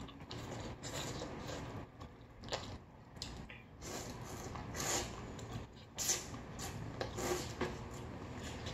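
People eating close to the microphone: wet chewing and mouth sounds at irregular moments, with no talking.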